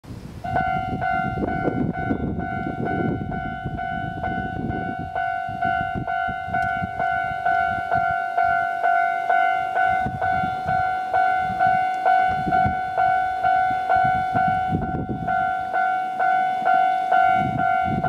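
Japanese level-crossing warning bell starts about half a second in and rings a steady electronic 'kan-kan' at about two strokes a second, one ringing pitch with overtones. It is the warning that a train is approaching and the barriers are closing.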